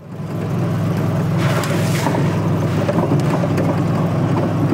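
Steady low drone of a vehicle's engine and road noise, with a brief hiss about a second and a half in.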